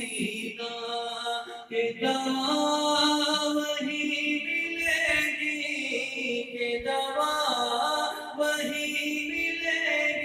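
A man singing an Urdu naat (devotional song) unaccompanied into a microphone, holding long notes with a wavering ornamental turn about three-quarters of the way through.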